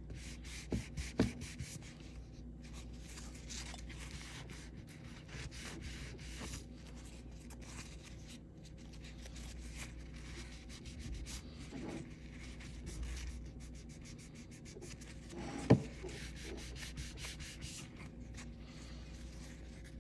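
Paper towel wet with acetone rubbing back and forth over a pistol's metal slide, wiping the surplus nail polish off the filled engraving in quick, repeated strokes. A few light knocks about a second in, and one sharp knock about three-quarters of the way through, the loudest sound here.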